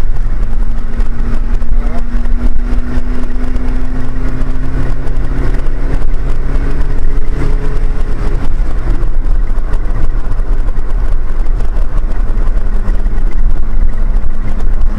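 A moving car's engine running under a steady loud rumble of road noise, its engine note rising slowly in pitch during the first half.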